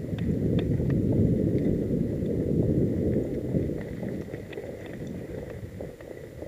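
Mountain bike riding down a rough, dry dirt singletrack: a steady rumble of tyres over the bumpy trail with scattered rattling clicks from the bike, loudest in the first few seconds and easing off after about four seconds.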